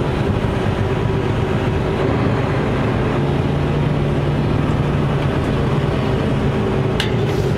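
Mercedes-Benz Actros truck's diesel engine running steadily as the truck drives slowly, a constant low drone. Two short clicks come near the end.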